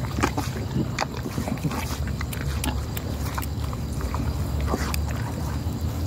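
A cow being drenched with a green herbal mixture from a plastic bottle held in its mouth: liquid sloshing and gurgling, with irregular sharp clicks and crackles of the bottle being handled, over a steady low rumble.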